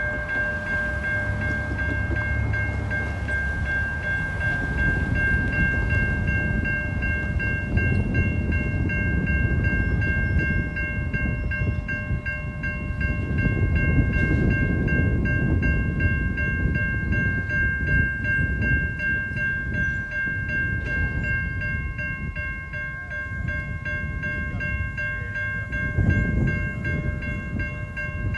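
A train rumbling along the tracks, swelling and easing, with a steady high-pitched tone ringing over it.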